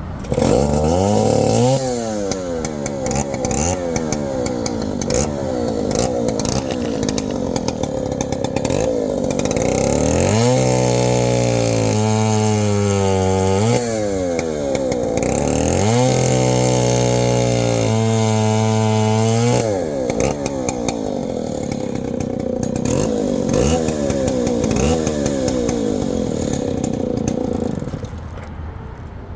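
A 1960 Stihl two-stroke chainsaw of about 106 cc being run hard: the throttle is blipped so the engine revs up and down over and over, and it is twice held at high speed for a few seconds in the middle before dropping back near the end. It runs cleanly and strongly.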